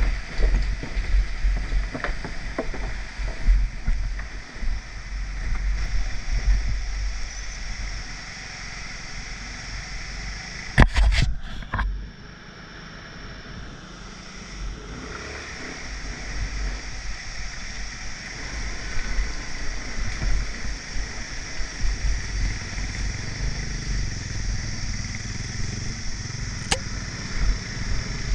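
Motor scooter engine running while riding over a rough plank bridge and a rutted dirt track, with wind rumbling on the microphone and uneven knocks from the bumps. A loud cluster of knocks comes about eleven seconds in, after which it runs quieter and steadier.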